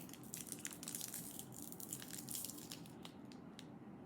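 Crunchy candy being chewed, a rapid irregular run of small crisp cracks that thins out near the end.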